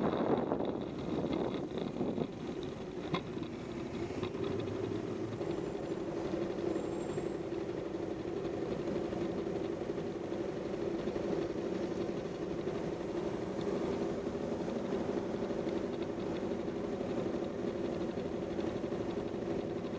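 Bajaj Pulsar motorcycle's single-cylinder four-stroke engine idling steadily at a standstill, after the rush of riding wind dies away in the first second.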